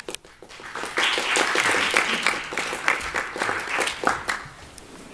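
Audience applauding. A few scattered claps come first, then a burst of full clapping about a second in, which dies away after about three seconds.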